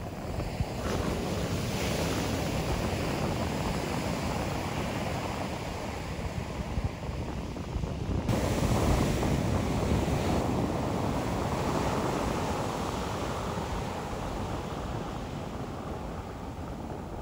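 Ocean surf breaking and washing up a sandy beach, swelling and ebbing, with wind buffeting the microphone. The sound cuts abruptly to a slightly louder stretch of surf about eight seconds in.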